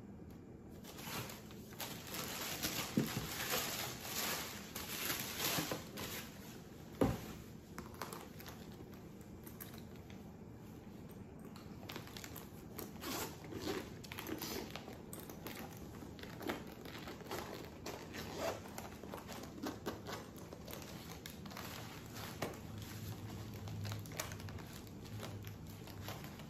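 Tissue paper and packaging crinkling and rustling in handling while a gift box is unpacked and a fabric travel bag is handled, with one sharp knock about seven seconds in.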